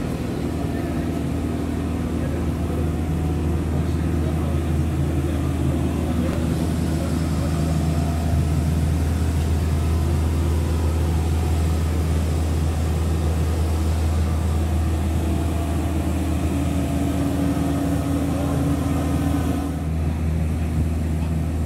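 Steady low drone of a running engine, holding one pitch with a hum of overtones, changing slightly near the end.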